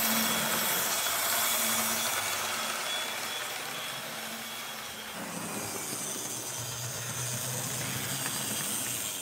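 Freshly restored HO-scale TYCO Mantua 0-4-0 switcher locomotive running on the track with a train of freight cars, its small electric motor, gears and wheels making a steady whir. It fades as the train moves away and grows louder again as it comes back close.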